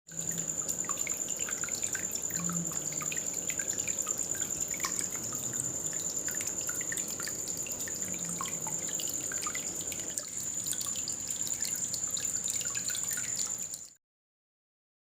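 Water dripping and trickling from a small homemade waterfall fountain into its basin, many small drips over a steady high whine. It cuts off suddenly near the end.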